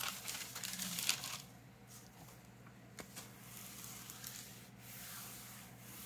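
Paper rustling as a protective sheet is laid over a loose Bible page, then a small hand iron sliding back and forth over the paper with a soft, steady rubbing.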